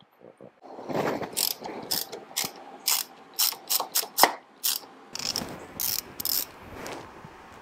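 Hand socket ratchet clicking in irregular strokes as it tightens down the mounting bolts of a motorcycle headlight cowl.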